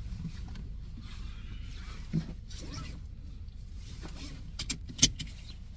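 Steady low rumble of a car, heard from inside, with a few sharp clicks near the end, one of them much louder than the rest.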